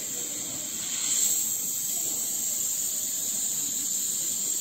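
Gas-oxygen burner flames on an ampoule sealing machine, hissing steadily. The hiss swells about a second in as the flame is turned up, because it is not yet hot enough to pull the ampoule tips off.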